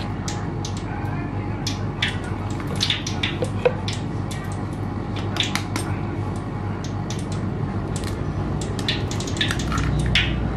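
A whisk stirring flour and water in a metal bowl, with many scattered clicks and taps of the whisk against the bowl, while water is poured in from a plastic jug to mix a batter. A steady low hum runs underneath.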